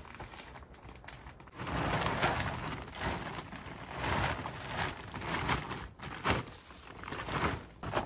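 A white plastic sheet rustling and crinkling as it is pulled and tucked over a stack of compost bags, in a string of uneven swells that begin about a second and a half in.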